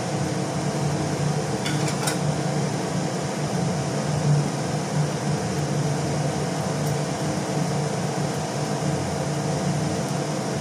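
Steady mechanical hum, like a running motor or fan, with a constant low drone. A faint click about two seconds in.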